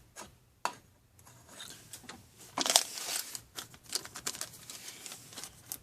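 Plastic packaging crinkling and rustling as it is handled, in irregular crackles, loudest about three seconds in. A couple of light clicks come before it.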